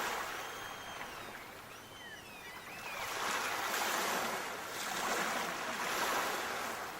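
Sea waves washing in and receding, surging at the start and twice more in the second half. Faint high chirps come in between the first and second surges.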